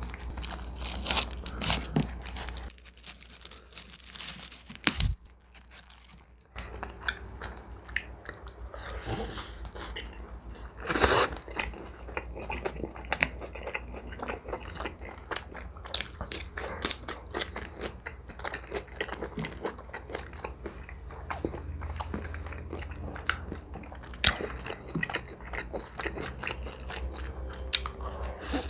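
Close-miked eating: a slice of shrimp pizza pulled off the pie, then bitten and chewed, the crust crunching in many short crackles. A louder noise comes about eleven seconds in.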